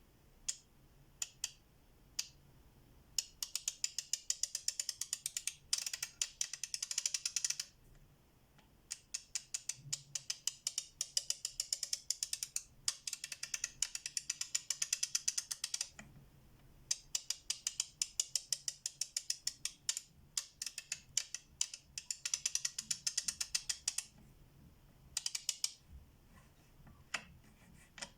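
FELO Ergonic K ratchet's pawl clicking over the gear teeth in three long runs of fast, even ticks lasting several seconds each, with a few single clicks at the start and near the end.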